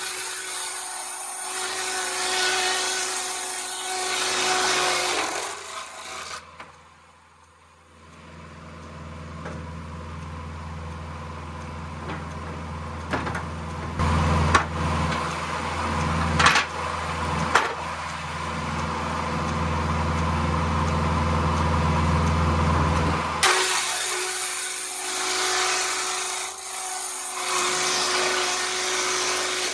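Tractor-PTO-driven sawmill edger cutting a board for about six seconds, then running unloaded with a steady low hum and a few knocks. Near the end it cuts through another board.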